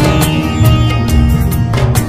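Background music: a melody of held notes over a steady, quick beat.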